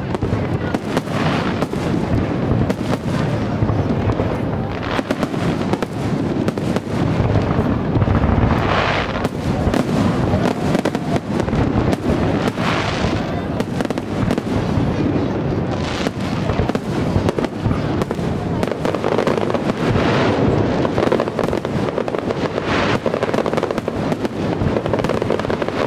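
Aerial firework shells bursting in a continuous barrage, dense crackle between the bangs, with heavier bursts about every three or four seconds.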